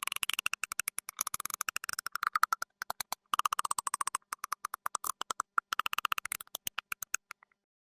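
The Predator creature's signature clicking call: rapid trains of dry, throaty clicks, about a dozen a second, in several runs broken by short pauses, stopping shortly before the end.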